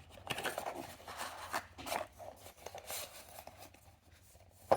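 Hands handling a small object close to the microphone: irregular rubbing and scraping, fading out shortly before the end.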